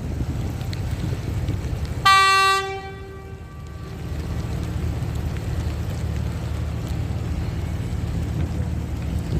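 Steady low rumble of wind on the microphone and city traffic, with a short, loud vehicle horn toot about two seconds in.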